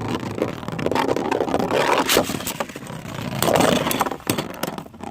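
Beyblade spinning tops whirring and scraping in a plastic stadium, clashing with many sharp clacks.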